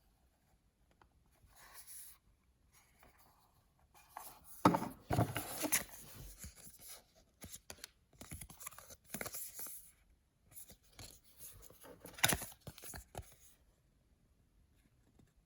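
Paper and plastic packaging of a mystery-toy blind bag being handled and torn open: crinkling and tearing in irregular bursts, starting a few seconds in, with two sharp, louder snaps, one early in the bursts and one near the end.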